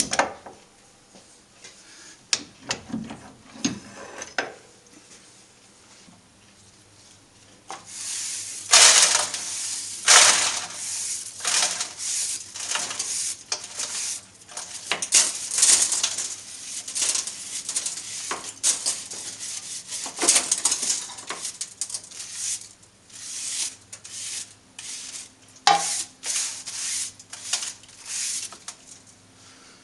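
Metal swarf being scrubbed and scraped out of a lathe bed by hand: a long run of quick, scratchy strokes from several seconds in, with metal chips clinking. A few separate knocks and clinks in the first seconds.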